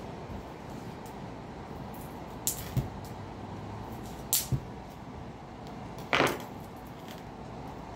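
Knife cutting into the plastic wrapping of a whole raw chicken: two pairs of short sharp clicks and scrapes, then a longer, louder rip of the plastic about six seconds in, over steady background noise.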